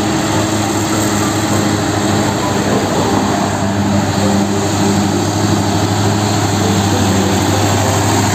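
Diesel engine of a loaded Mitsubishi Fuso dump truck running steadily as the truck drives past, one even engine note throughout.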